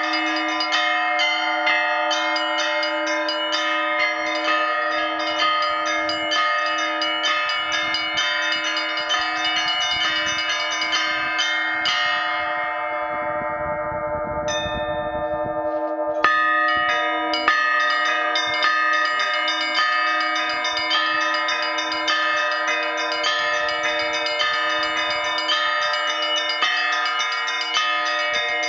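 Russian Orthodox church bell ringing: small and medium bells rung by ropes in a rapid chime over a steady low tone, the peal led by a new 120 kg blagovestnik from Vladimir Shuvalov's foundry. About twelve seconds in the chime stops and the bells fade, one high note sounds, and the full ringing starts again with a strong strike about sixteen seconds in.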